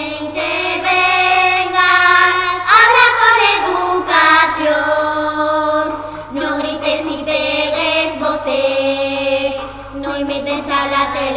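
Three young girls singing a song together, their voices carrying a sustained, gliding melody with only brief breaks between phrases.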